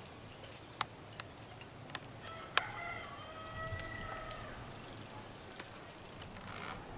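A rooster crows once: a single call of about two seconds that starts a couple of seconds in and holds a fairly steady pitch. A few sharp clicks come in the first three seconds, and the loudest of them lands just as the crow begins.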